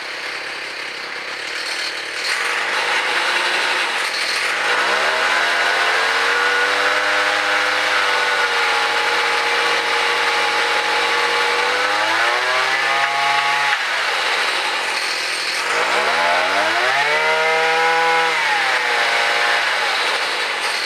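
Small gasoline engine of a homemade gas-powered mobility scooter running on its first start after an input shaft repair, driving the chain with no wheels fitted. It picks up speed a couple of seconds in and holds steady, then revs up and drops back twice in the second half.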